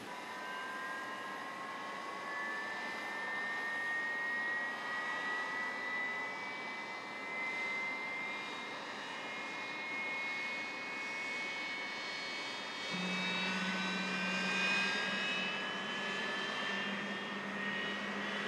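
Boeing 767-300 jet engines spooling up: a whine of several tones climbing slowly in pitch, while the aircraft is coupled to a pushback tug. A steady low hum joins about two-thirds of the way in.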